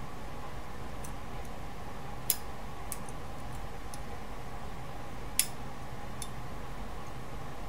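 Small sharp clicks of fine metal tweezers catching on the metal contact springs of an opened mechanical rotary encoder, two louder clicks about three seconds apart among several fainter ticks, over a steady background hum.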